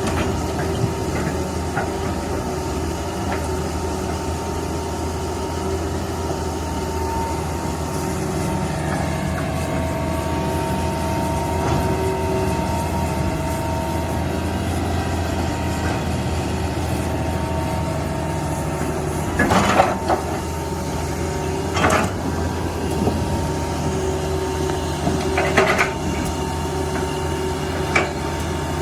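Heavy machine's engine running steadily, with a few short clanks in the second half.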